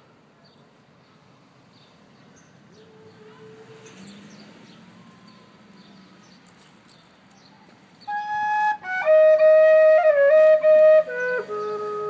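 Faint background hush, then about eight seconds in, music starts: a loud woodwind melody of held notes stepping mostly downward in pitch.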